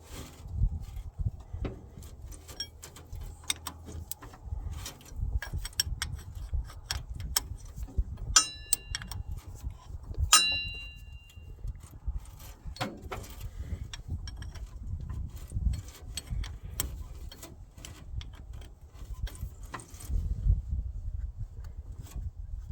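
Wrench work on a battery cable terminal: irregular metallic clicks and knocks, with two ringing clinks of metal on metal about eight and ten seconds in, over a low rumble.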